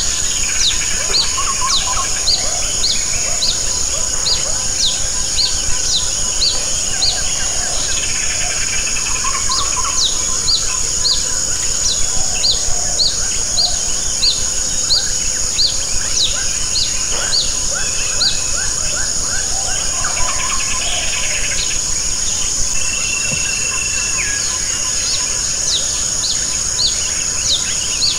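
Steady rain falling on leaves and a plastic basin, with an insect's steady high drone and a bird repeating a short, high falling chirp about twice a second.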